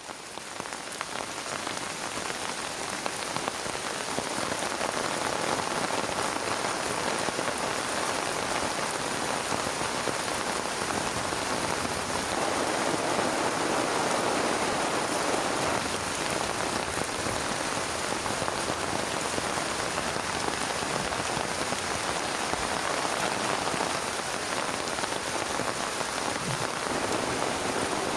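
Heavy rain falling steadily, fading in over the first few seconds.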